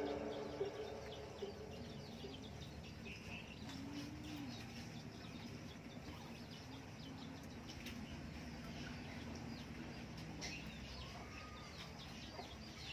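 Faint, scattered chirping and clucking animal calls with a few soft clicks, while background music fades out near the start.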